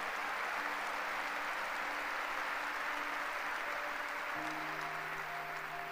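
Audience applauding steadily, with soft background music of held notes underneath that shift chord about four seconds in.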